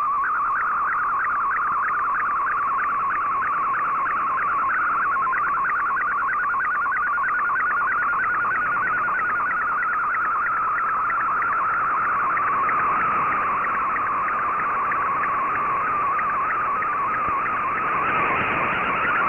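Shortwave data signal of an MFSK64 picture transmission being received: a warbling tone near 1 kHz that wanders in pitch with the image being sent, with a fast flutter, over a hiss of band noise.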